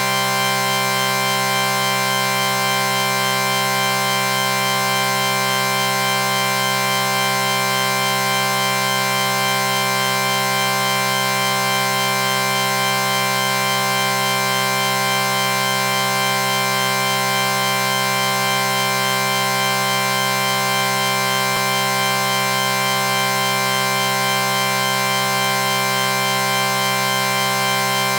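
A chord sound effect held without change: several steady tones sounding together at a constant level, with no change in pitch.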